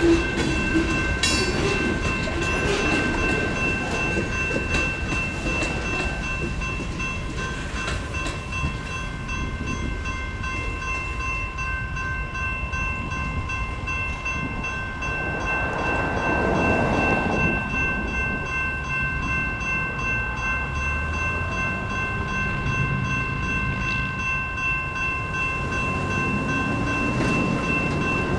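Freight tank cars rolling through a grade crossing, wheels clattering over the rails, until the last car clears about halfway through. Over it the crossing signal's GS Type 2 electronic bell rings steadily throughout. Near the end road vehicles start moving across.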